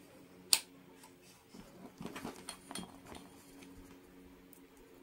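One sharp click from the analog multimeter's rotary function selector snapping into a new range position, then light clinking and rustling as test leads with metal probe tips are handled.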